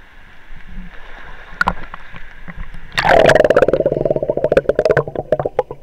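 Muffled water gurgling and bubbling, a loud, rapidly pulsing burst from about halfway through, with a couple of sharp clicks before it.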